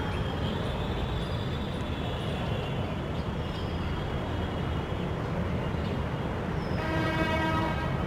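A steady low rumble, with a long horn blast starting about seven seconds in and running to the end.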